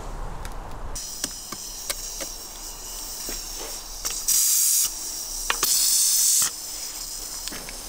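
Steady hissing with scattered sharp crackles from a grill of hot charcoal with a metal kettle set on the coals. About four and a half seconds in and again near six seconds, there are two loud bursts of hiss, each about half a second long.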